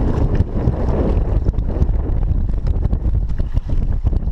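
Wind buffeting the microphone, a loud low rumble, with many small clicks scattered through it.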